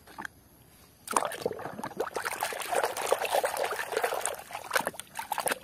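Water trickling and splashing irregularly as a muddy toy vehicle is washed, starting about a second in.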